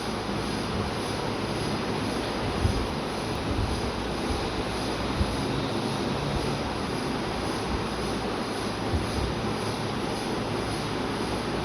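Steady machine-like droning noise with a few brief low thumps.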